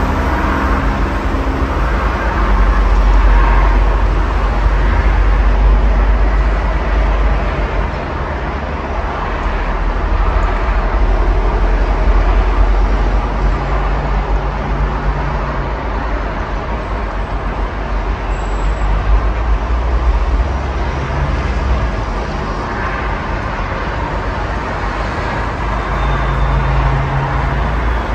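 Steady highway traffic: cars and trucks passing with a deep rumble. A low engine note from a heavy vehicle rises about halfway through and again near the end.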